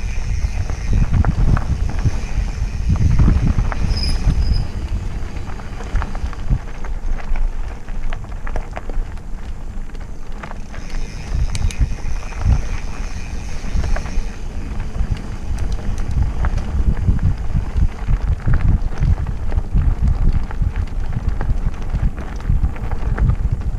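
Mountain bikes rolling along a dirt singletrack trail: tyre rumble with the chain and frame clattering over bumps and roots, and wind buffeting the microphone.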